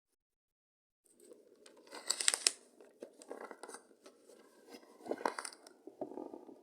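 Crinkling and tearing of craft material being handled up close. It starts about a second in, with two louder rips at about two seconds and five seconds in.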